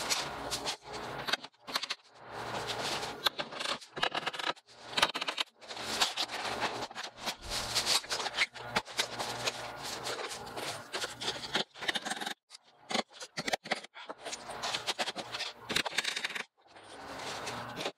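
Vinyl siding panel scraping, rattling and clicking as it is slid and flexed into place against the wall, with scattered short sharp knocks.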